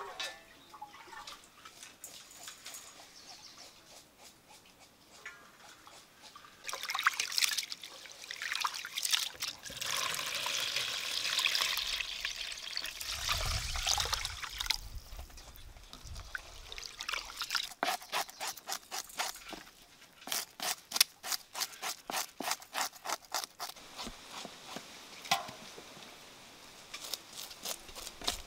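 Water poured from a bowl into a metal pot of rice, splashing and swishing as the rice is washed. Later, quick regular scraping strokes, about three a second, as a fish is scaled.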